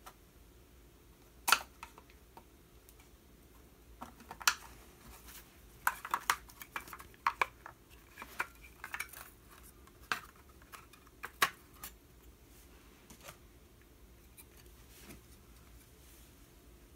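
Irregular clicks, taps and clatter of small hard objects being handled and set down, with a few sharper knocks, the loudest about a second and a half in and again near eleven seconds, and most of the handling in the middle.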